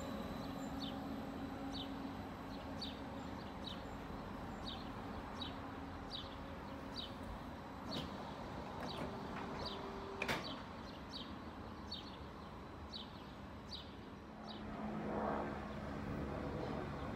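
Steady low hum of an SOB Stadler FLIRT electric train pulling away and fading, while a small bird chirps over and over, about twice a second. A couple of sharp clicks come through in the middle, and near the end the rumble of another train approaching rises.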